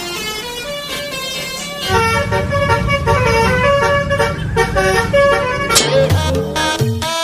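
A multi-tone 'telolet' bus horn playing a quick tune of short notes, with a low rumble joining about two seconds in. Near the end, music with a bass beat takes over.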